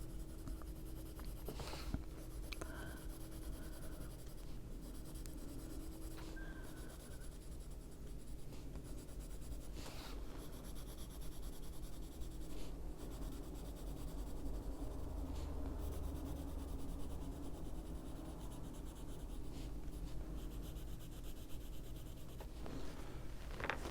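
Prismacolor coloured pencil rubbing on paper in steady strokes, layering colour over colour to blend it smoothly, with a low steady hum underneath.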